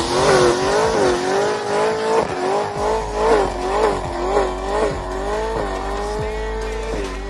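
Sports car doing a smoky burnout in circles: the engine is held at high revs while the rear tyres spin and squeal, the pitch swelling and dipping about twice a second. The pitch then holds steady briefly and drops near the end as the throttle comes off.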